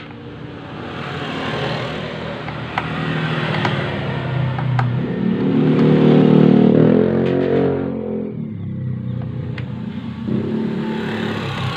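A motor vehicle engine running, its sound swelling and rising in pitch to a peak about five to seven seconds in, then dropping away. A few light metallic clicks come from a screwdriver working the bolts of a scooter's CVT cover.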